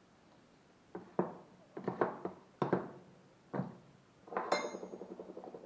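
Old steel wrenches clinking and clattering as they are set down into a container for a vinegar soak: a string of sharp knocks, with a brief ringing rattle about four and a half seconds in.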